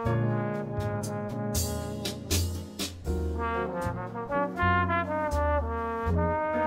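Background jazz music with a trombone playing the melody over a low bass line.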